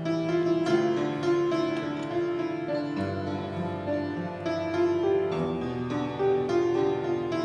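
Solo piano playing sustained bass chords under a melody, without singing; the bass shifts to a new chord about three seconds in and again a little past five seconds.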